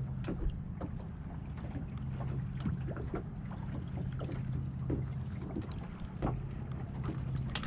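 Small fishing boat sitting on the water: a low steady hum with a faint tone, and light scattered knocks against the hull.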